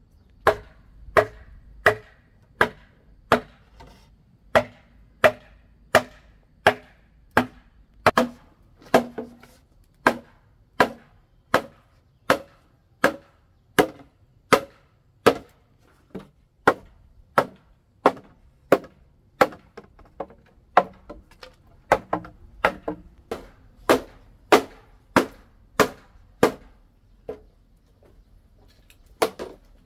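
Steady chopping: a blade striking hard into something on a block, about one and a half strokes a second, with a short pause near the end.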